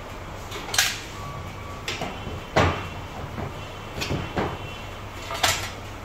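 Hard clunks and clinks of a small four-stroke brush-cutter engine block and hand tools being handled and set down on a work table. There are about six knocks, the loudest a little past two seconds in, over a low steady hum.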